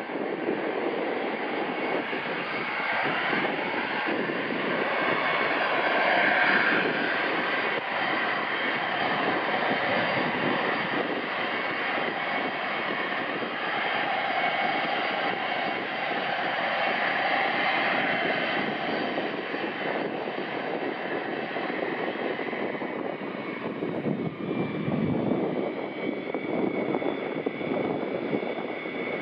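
Boeing E-3A AWACS jet's four Pratt & Whitney TF33 turbofan engines running, a steady loud rush with whining tones that shift in pitch.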